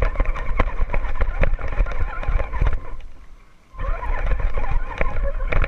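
Radio-controlled scale crawler truck driving through dry grass and brush, heard from on board: the whir of its electric motor and gears under a constant clatter of twigs and grass scraping the chassis and wheels. The sound drops away for under a second just past the middle, then starts again.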